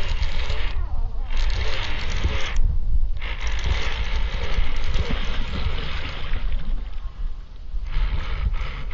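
Baitcasting reel being cranked under the load of a hooked bass, a steady whirr that stops briefly twice, about a second and about three seconds in. A low wind rumble on the microphone runs underneath.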